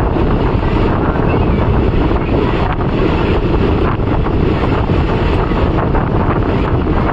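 Passenger train running at speed, heard from on board: a steady rumble from the moving coach, with wind buffeting the microphone.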